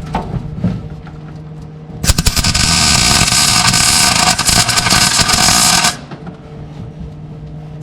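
MIG welder laying a bead on the car body's sheet steel: a loud, steady crackle of the arc that starts about two seconds in, lasts about four seconds and cuts off suddenly. A steady low hum runs underneath.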